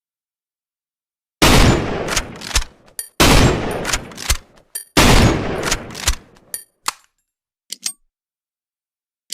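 Lee-Enfield Mk III .303 bolt-action rifle fired three times, about a second and a half to two seconds apart, with short metallic clicks of the bolt being worked between shots. A few more bolt clicks follow near the end.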